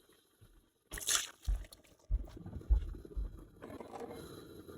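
Hands preparing raw yam: a brief hiss, then a few dull knocks and wet scraping and handling sounds after about a second of quiet.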